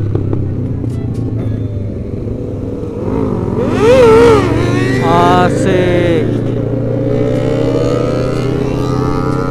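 Motorcycles riding in a group: a steady engine drone underneath, with a loud revving that rises and falls about four seconds in, and more revving climbing toward the end.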